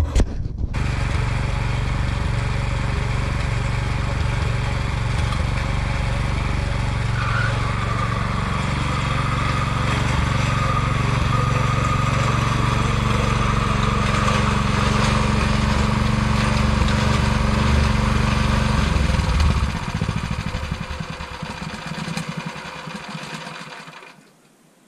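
Small petrol engine of a Hulk 1 motor-cultivator running steadily under load while it pulls a plough through the soil. About 19 seconds in, the sound weakens, then cuts off sharply shortly before the end.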